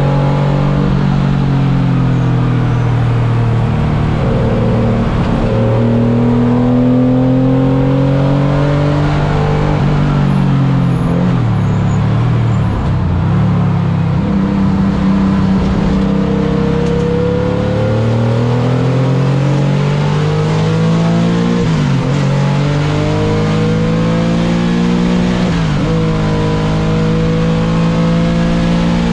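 Car engine running hard on a race-track lap. Its pitch climbs through each gear and drops sharply at the upshifts, with stretches of falling pitch as it slows.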